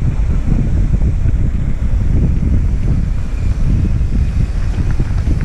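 Wind buffeting a helmet camera's microphone as a mountain bike rolls downhill at speed, a loud low rumble with faint ticks from the tyres on the path near the end.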